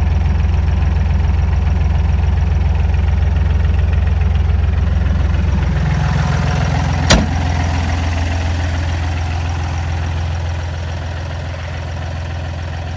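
Fendt 240S tractor's three-cylinder diesel engine idling steadily at about 850 rpm. A single sharp knock comes about seven seconds in, and the engine grows gradually quieter over the last few seconds.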